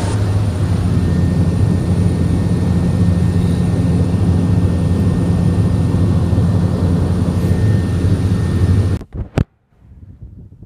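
Seaplane's propeller engine running steadily in flight, a loud, even drone with a deep hum, heard from inside the cabin. It cuts off suddenly about nine seconds in, leaving only faint outdoor noise.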